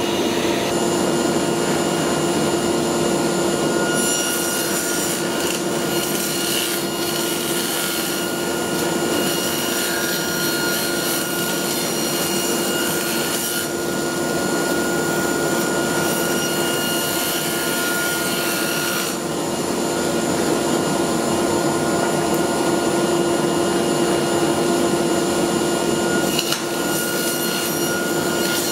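Table saw running and ripping thin strips of wood, with the dust collector drawing air through the saw's dust ports. A steady motor and blade hum sits under the cutting noise, which grows stronger and weaker several times as the strips are fed through.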